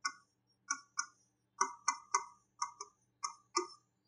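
Pen tip tapping and clicking against a smart-board screen as words are handwritten: a run of about ten short, uneven ticks.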